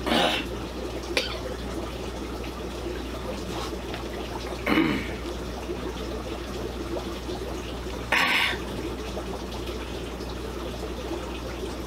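Steady running water from the aquarium tanks' filtration, with a few brief louder noises.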